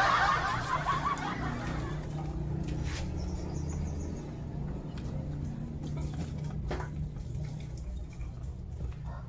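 Laughter fading in the first second, then a low steady background rumble with two light knocks and a faint, brief high bird chirping about three seconds in. A rooster starts to crow right at the end.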